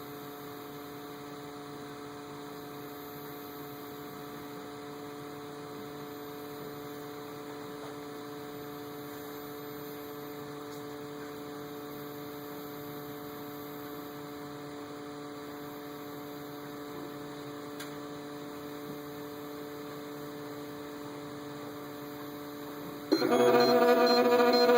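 Steady hum with a few held tones, then about 23 seconds in a much louder sound with many stacked pitches cuts in abruptly: the intermittent bad sound that the device makes.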